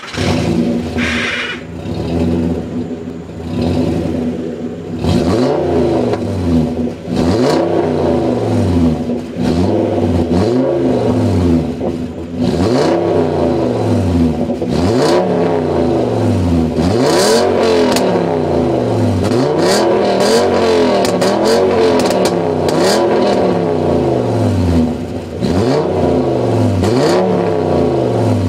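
Exhaust of a Seat Toledo's 2.3-litre 10-valve VR5 engine, its end silencer replaced by a plain pipe. The engine runs unevenly at first, then from about five seconds in is revved again and again, about one rev every second and a half.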